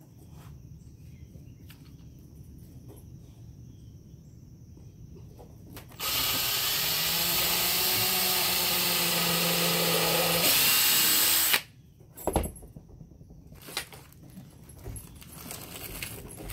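Ryobi 18V cordless drill boring into a wooden board. It runs steadily for about five seconds, shifts up in pitch and level just before it stops, and is followed by a couple of knocks as the wood is handled.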